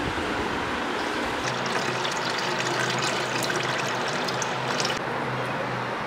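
Water poured slowly from a plastic jug into a glass aquarium, a steady trickling stream splashing onto the sand and rocks inside.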